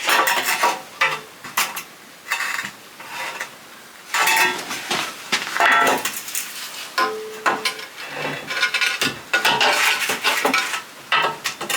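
Hard clinks, knocks and scrapes of stone slabs and a metal spirit level being set down and shifted on the hearth stones, a string of sharp hits with brief ringing, coming in clusters.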